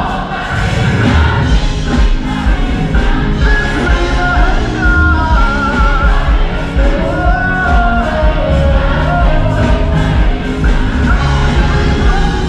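Children's choir singing gospel music with a live band through the hall's sound system, with heavy bass and a lead voice wavering with vibrato over the choir.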